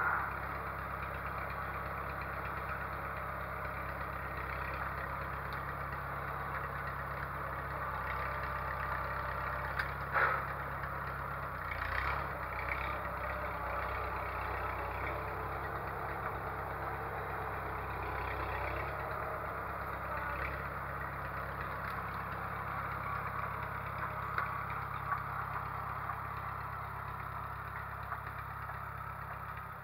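An engine idling steadily, its note shifting briefly a couple of times partway through.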